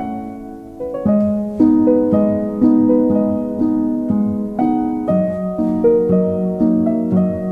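Instrumental background music with gently struck notes, about two a second, each fading before the next.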